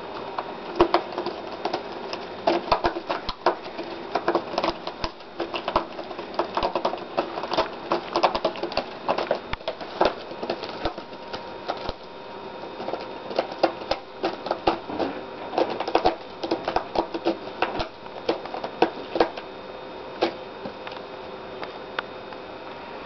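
Cat clawing at a corrugated cardboard scratcher: repeated bursts of quick scratching clicks and rasps that stop and start, thinning out near the end.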